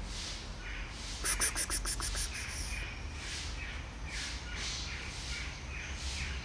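Birds calling: a rapid rattling chatter of about ten notes starts about a second in and lasts about a second and a half, over a short high call repeating a little less than once a second.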